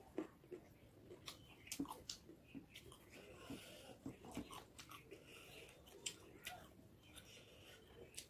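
Faint mouth sounds of a person eating rice by hand: chewing and lip smacks, with irregular short, sharp clicks.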